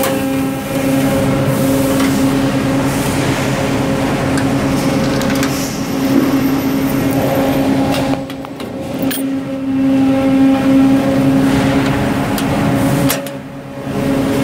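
A steady, loud machine hum, one low drone with a higher tone above it, dipping briefly twice: once past the middle and once near the end.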